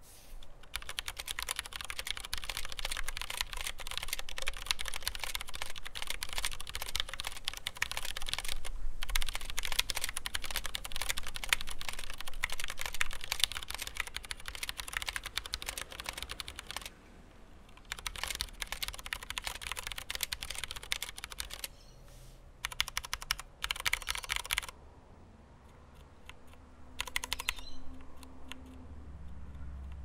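Typing on a Mistel Barocco MD600 split mechanical keyboard with Cherry MX Brown switches and thick PBT keycaps. The tactile switches have no audible click. Fast, continuous typing for about 17 seconds, with a brief pause near 9 seconds, then gives way to shorter bursts of keystrokes separated by pauses.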